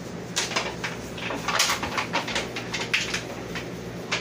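Irregular crinkling and crackling as plastic-gloved hands break a ready-made pie crust out of its thin foil pie tin, with the tin flexing and the crust snapping into pieces.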